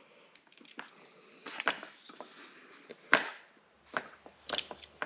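Irregular sharp snips and clicks of hand tools cutting and handling an electrical cord, the loudest about three seconds in.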